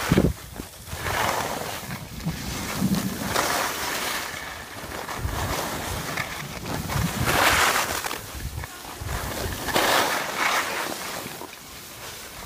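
Skis hissing and scraping over packed snow on a downhill run, mixed with wind rushing over the microphone; the rushing swells and fades several times.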